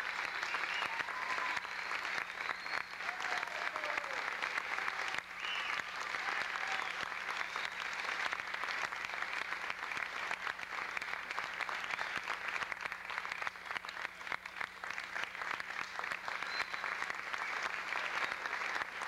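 Theatre audience applauding steadily, a dense patter of many hands clapping at once.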